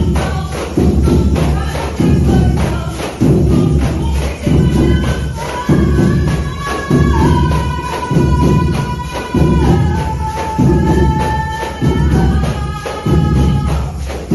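A percussion band of tambourines and drums playing along to a gospel song: a heavy low beat about once a second under a steady jingling tambourine rattle, with a held melody line through the middle.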